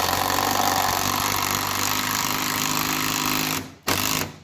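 Teccpo 1/4-inch cordless impact driver hammering a 9/16 wood lag bolt into a wooden door jamb. It runs steadily for about three and a half seconds, stops, then gives a short second burst near the end; the lag is not yet fully seated.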